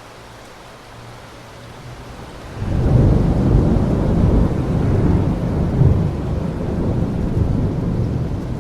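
Steady rain, then about two and a half seconds in a sudden loud, low thunder rumble that carries on and slowly eases near the end.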